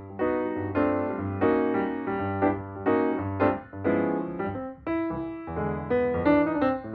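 Background music: a keyboard tune of struck notes over a steady bass line.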